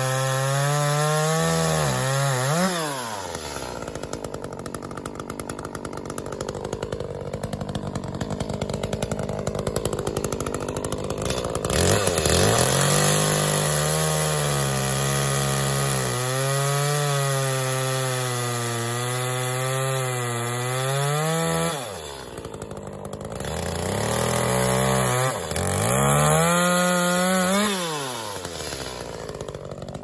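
Gas chainsaw running at full throttle and cutting through a log, its engine pitch dipping and climbing back a few times as the chain bites and frees in the cut.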